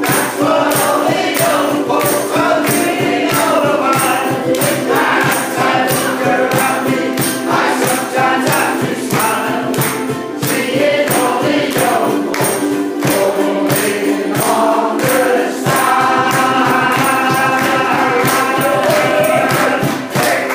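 A ukulele band strumming in a steady rhythm and singing together, with a cajón keeping the beat. In the last few seconds the voices and ukuleles hold a long final chord, which then stops sharply.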